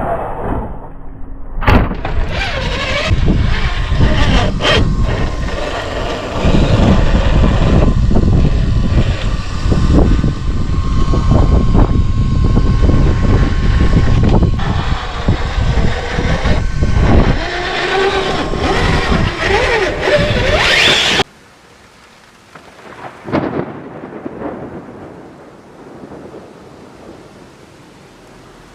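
Traxxas TRX-4 RC crawler driving on freshly rebuilt axles. Its electric motor and gears give a faint steady whine under heavy noise with scattered knocks. The sound cuts off suddenly about 21 seconds in.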